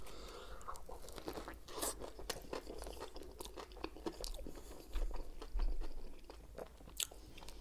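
A person chewing a mouthful of a Subway sub close to the microphone, with irregular crunches and mouth clicks; the crunching is a little louder about five seconds in.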